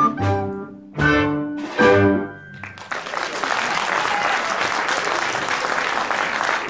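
A piece of music ends: two chords about a second apart and a high note held briefly. Audience applause then starts about three seconds in and continues.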